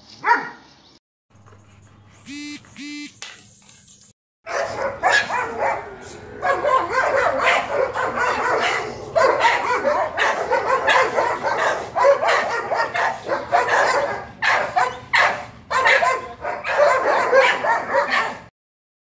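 Dogs barking: one loud bark right at the start, two short high yips a couple of seconds in, then from about four seconds in a dense, unbroken din of several dogs barking and yelping together. The din cuts off suddenly near the end.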